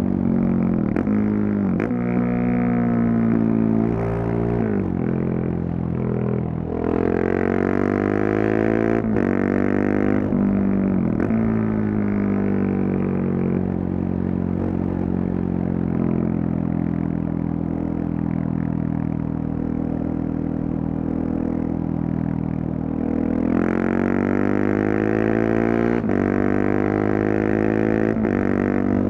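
KTM 690 Duke's single-cylinder engine through a LeoVince decat and slip-on exhaust, pulling up through the revs in repeated rising sweeps with short breaks between them. In the middle it holds a steadier, lower note for several seconds. Near the end it rises again.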